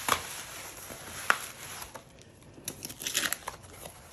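Corrugated cardboard box flaps and paper wrapping being handled, rustling and crinkling in irregular bursts, with a sharp snap about a second in and a flurry of crinkling near the end.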